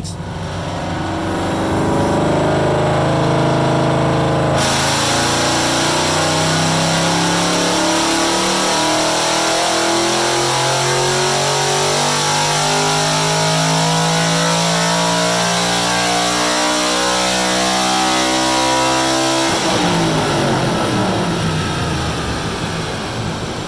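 Ford Mustang's Coyote 5.0 V8, with aftermarket exhaust and intake, making a wide-open-throttle dyno pull: the engine note climbs steadily for about eighteen seconds, then the throttle closes and it winds down as the dyno rollers coast.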